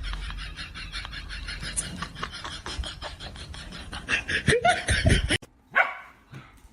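A person laughing in quick rhythmic bursts that grow louder toward the end, then cut off suddenly, followed by one short sound.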